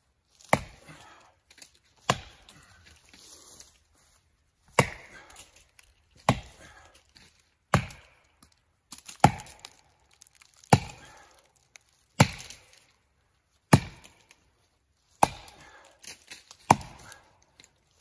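Felling axe with a 4-pound head on a 36-inch handle chopping into the trunk of a dead standing tree: about eleven hard strikes at an even pace, roughly one every one and a half seconds, each followed by a short rustle.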